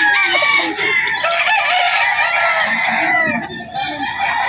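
Several gamecock roosters crowing over one another, their calls overlapping continuously against a busy background din.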